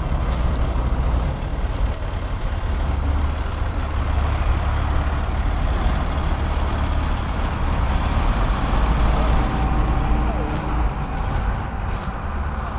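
D80 combine harvester running while harvesting soybeans: a steady low engine drone under a continuous mechanical din.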